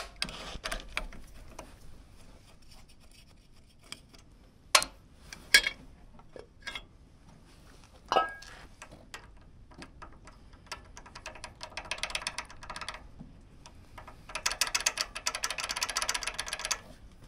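Socket ratchet clicking rapidly in two long runs in the second half, as valve cover bolts are backed out. Before that come a few sharp metal clinks of tools and bolts, one with a short ring.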